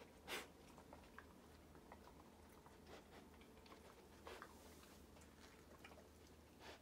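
Near silence with a few faint, short sniffs and light scattered ticks as a Japanese Akita puppy searches the carpet with her nose for a target odour.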